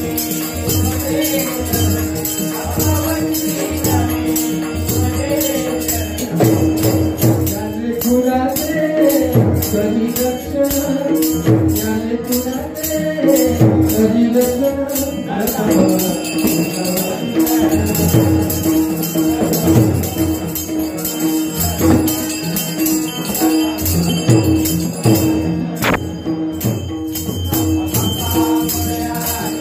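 Dabalbari bhajan music: a held drone note under a sung devotional melody, strongest through the middle stretch, with small hand cymbals jingling on a steady fast beat and drum strokes underneath.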